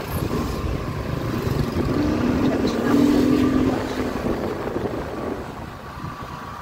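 Motor scooter running along a street, with road noise and passing traffic. The sound swells to its loudest about three seconds in, then eases off.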